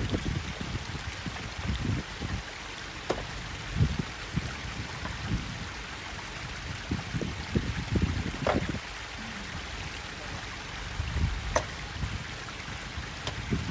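Water running down a stony track, with irregular low rumbles and a few sharp clicks of stones knocking together as rocks are packed around a stuck 4x4's front wheel.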